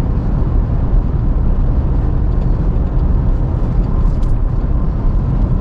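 Steady engine and road rumble inside the cab of a manual pickup truck being driven.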